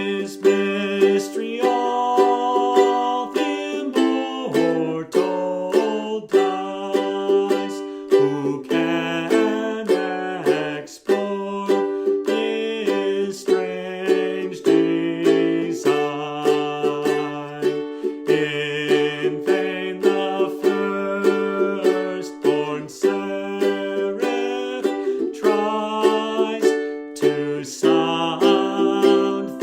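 Ukulele strumming the chords of a hymn tune in a steady rhythm, with a man's voice singing the melody over it.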